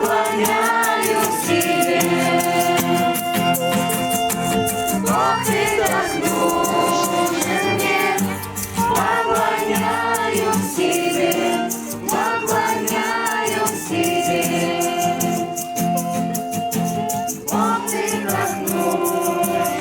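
Background music: a Christian worship song with choir voices holding long notes over a steady rattling shaker beat.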